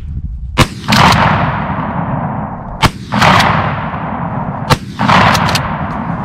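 Three shotgun blasts about two seconds apart from a pump-action shotgun, each followed by a long rolling echo, with smaller sharp clacks between the shots.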